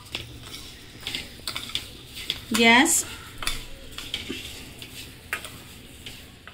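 Spoon stirring sugar-coated strawberry pieces in a stainless steel pan, with scattered grainy scrapes and taps against the metal; the sugar crystals are not yet melted. A short voice-like sound about two and a half seconds in.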